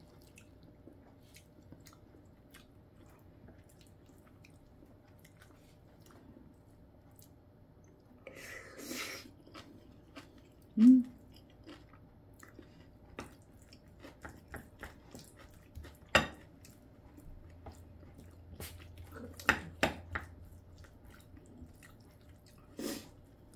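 A person eating close to the microphone: chewing and crunching mouth sounds from a meal of curry and crunchy radish kimchi, with scattered sharp clicks of chopsticks and a metal spoon against plates. A brief low sound about eleven seconds in is the loudest moment.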